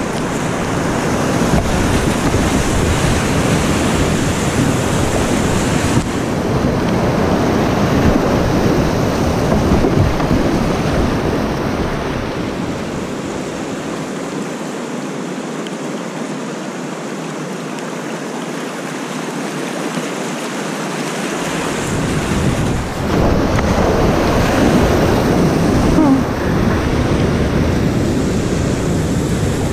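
Rushing whitewater and splashing around a kayak running a shallow, rocky rapid, picked up by a helmet-mounted action camera with wind buffeting its microphone. The low rumble of the wind on the microphone drops away for several seconds in the middle.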